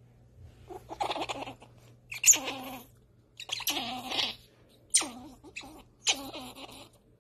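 A young pet squirrel gives about five short squealing, complaining calls in a row while held on its back in a loose grip. These are the protest sounds of a squirrel acting as if it is being restrained.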